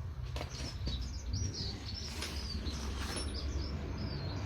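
A small bird chirping and twittering in quick high notes, over a steady low rumble, with a few light clicks.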